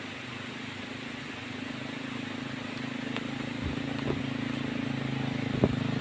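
A small step-through motorbike's engine running steadily as the bike comes closer, growing louder over a few seconds, with a few short knocks near the end.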